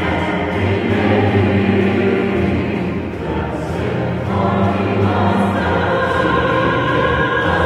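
Choir singing with a symphony orchestra: sustained chords, with higher held notes coming in about four seconds in.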